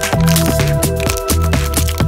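Electronic background music with a steady beat and a heavy bass line.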